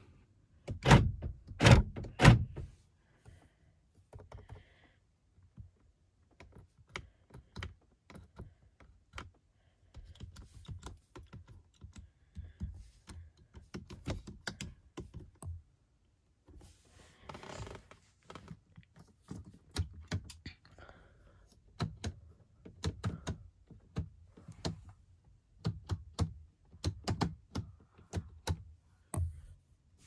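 Three heavy thunks in the first couple of seconds, then a long run of small plastic clicks as the Dodge Grand Caravan's door-panel and dash switches are pressed and turned. A short rushing sound comes about halfway through.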